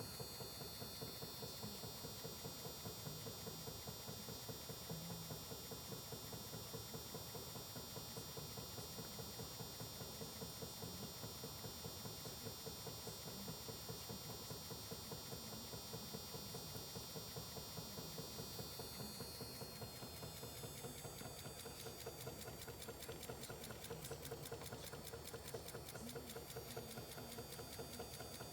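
Small homemade motor-generator machine running steadily with a fast, even ticking. A high steady whine fades out about two-thirds of the way through.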